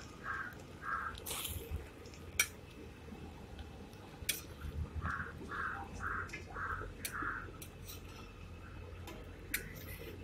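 A crow cawing in runs of short calls, about three a second: a few at the start and six more from about five seconds in. Sharp metal clinks of a cooking utensil against a pan come a few times and are the loudest sounds.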